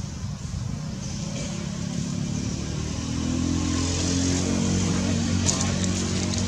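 A motor vehicle's engine running, a steady low hum that grows louder about three seconds in, with a few brief clicks near the end.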